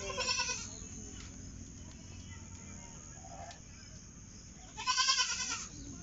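A goat kid bleating twice: a short, wavering, high-pitched bleat at the start and a louder one about five seconds in.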